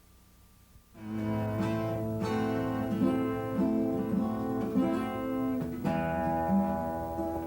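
Instrumental music starts suddenly about a second in, after near silence: held chords with a moving melodic line over them, on what sounds like guitar.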